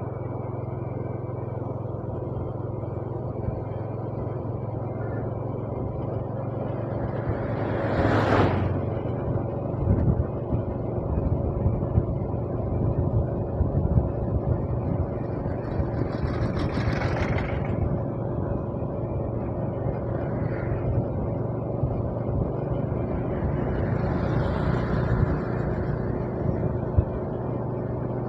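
Steady road rumble of a vehicle riding along a highway. Louder swells of noise come three times, about a third of the way in, just past the middle and near the end, like other vehicles passing.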